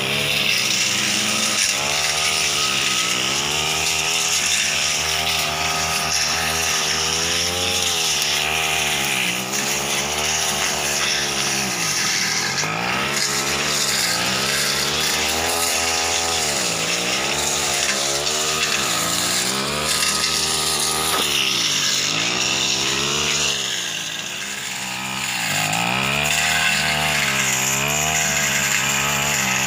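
Backpack brush cutter's small engine revving up and down over and over as it cuts thick ferns and scrub. It eases off once for a moment late on.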